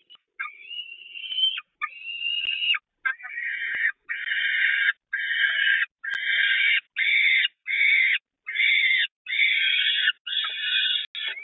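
Peregrine falcon chicks calling: a run of harsh, repeated calls, about one a second, each under a second long with short gaps between them.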